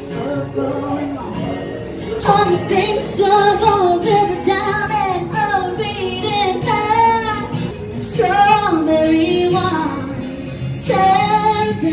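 A woman singing a country song over instrumental backing, her voice carrying clear held melodic lines.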